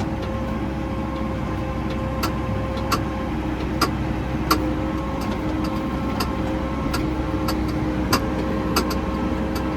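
Tractor engine running steadily under load, heard from inside the cab while driving across a field, with irregular sharp clicks every second or so; the seat clicks a lot.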